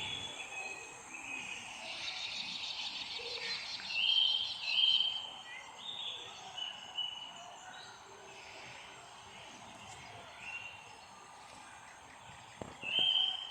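Several birds chirping and singing over a steady outdoor hiss: short high notes, a quick trill about two seconds in, and the loudest calls around four and five seconds in and again near the end.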